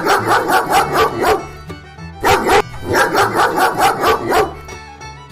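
Dog barking in rapid yapping runs, about six barks a second, in two bouts with a short break between them, over background music.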